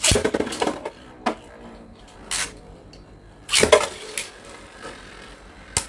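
Two Beyblade spinning tops launched into a clear plastic stadium, clattering at the start as they are ripped off the launchers and land. They then spin and clack together in sharp hits, the loudest cluster a little past three and a half seconds in.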